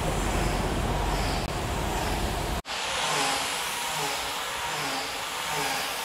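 Compressed-air gravity-feed spray gun hissing steadily as it sprays a finish coat onto a large wood slab. A low rumble underneath cuts out suddenly about two and a half seconds in.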